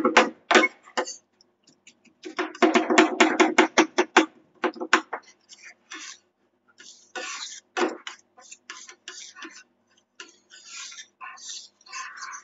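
Metal spatulas chopping rapidly on a cold steel plate for ice cream rolls, about ten sharp taps a second in two runs, with a faint ring from the plate. Softer scraping follows as the ice cream is spread and worked across the plate.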